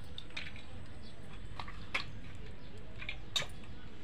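Hands washing small fried fish pieces in salted water in a steel bowl and squeezing them out: soft wet squishing with a few short, sharp clicks.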